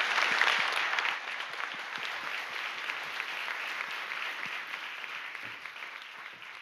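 Audience applause, a dense patter of many hands clapping, loudest over the first second and then fading away steadily.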